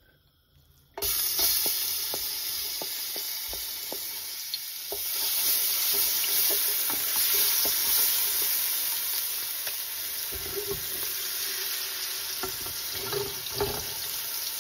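Grated ginger and garlic sizzling in hot oil in a stainless steel pot, starting suddenly about a second in and growing louder about five seconds in. A wooden spoon clicks and scrapes against the pot as the paste is stirred.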